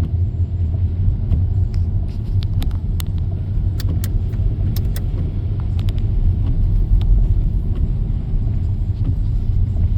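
Car interior: the steady low rumble of the car driving on a rain-soaked road, with scattered sharp ticks between about one and five seconds in.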